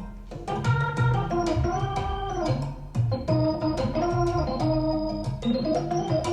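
Instrumental rock break led by organ over bass and drums, held notes bending in pitch, played back through SVS Ultra Evolution Nano loudspeakers and picked up by room microphones.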